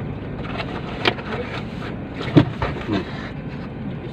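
Steady hum inside a car cabin, with a sharp click about a second in and a couple of short knocks and rustles from people moving and eating, the loudest about halfway through.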